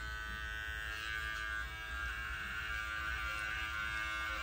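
Electric dog grooming clipper with a 10 blade running with a steady buzzing hum.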